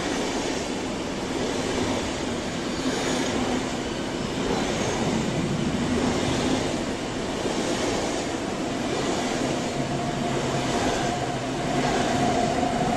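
SBB double-deck intercity coaches rolling past close by along the platform: a steady rumble of wheels on rail that swells and fades every second or two as the carriages go by. Over the last few seconds a high, steady squeal grows louder.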